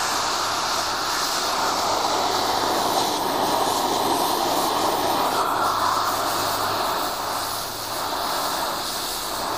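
Oxy-propane cutting torch flame burning with a steady hissing rush, dipping slightly near the end as the oxygen is set back to a neutral flame.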